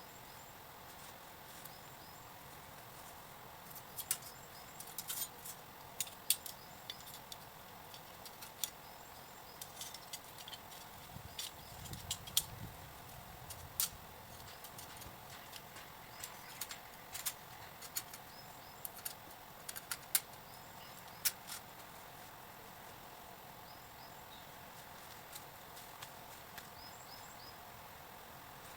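Scattered light clicks and clatter of camping gear being handled during camp setup, over a steady outdoor background hum. There is a brief low rumble about halfway through and a few faint bird-like chirps near the end.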